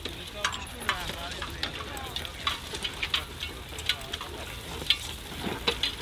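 Irregular crackling and clicking of a horse-drawn plough team working across dry stubble: hooves and the plough going through straw stubble and soil, with harness gear clinking.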